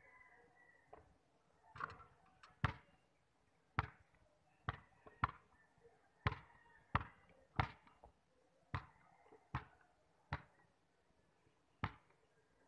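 Basketball bouncing on a concrete court as it is dribbled: a series of sharp thuds, often about two-thirds of a second apart, with short pauses between runs.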